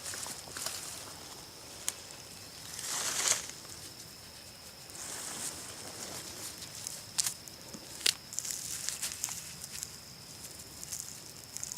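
Dirt and leaf litter being dug and handled during a metal-detecting dig: rustling and scraping, a louder scrape about three seconds in, and a few sharp clicks. A steady thin high whine runs underneath.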